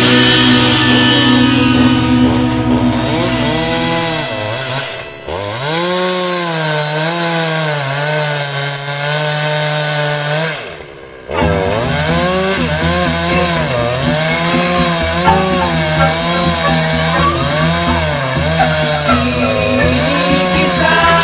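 Ogawa Pro VX8224 two-stroke chainsaw with a 28-inch bar cutting into a large tree stump. The engine runs near full throttle, its pitch wavering up and down as the chain loads and frees in the wood. It drops off briefly twice, about five and eleven seconds in.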